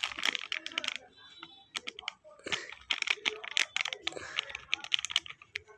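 Crinkly plastic wrapper of a snack-pack collectible card crackling as fingers handle and press it. It comes in irregular runs of sharp crackles, with a lull between about one and two seconds in.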